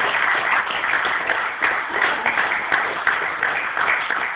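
Party audience applauding the end of a slideshow, with voices mixed in.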